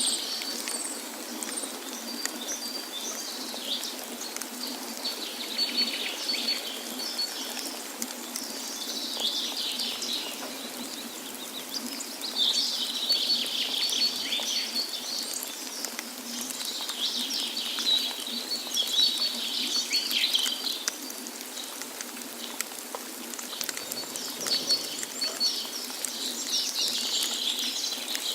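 Songbirds singing: repeated bursts of high chirps and rapid trills every few seconds, over a steady rushing of falling water.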